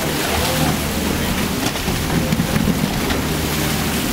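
Sharks thrashing at the water's surface in a feeding frenzy, a continuous hiss of splashing and churning water, over a steady low hum of the boat's machinery.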